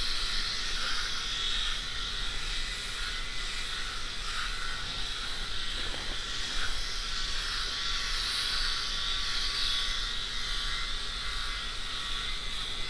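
Tiklean eight-head rotary electric shaver running steadily as it is moved over a freshly shaved bald scalp.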